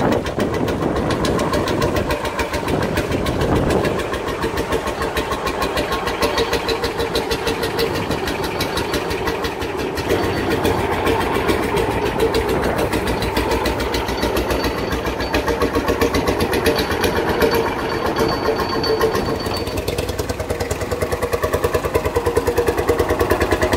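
1938 Lanz Bulldog tractor's single-cylinder hot-bulb two-stroke engine running with a rapid, even beat as the tractor drives along.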